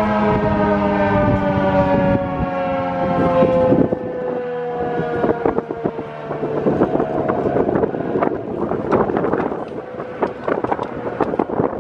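ACA P-50 electromechanical outdoor warning siren winding down at the end of its Alert cycle, its several-tone wail sliding slowly lower in pitch and fading out about six seconds in. Strong wind gusts on the microphone take over from there.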